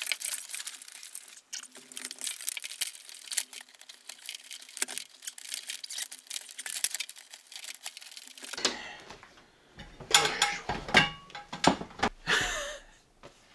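Rustling, crinkling and small clicks of electrical cables being pulled and untangled by hand. About nine seconds in, louder knocks and clatter from an aluminium stepladder being climbed down.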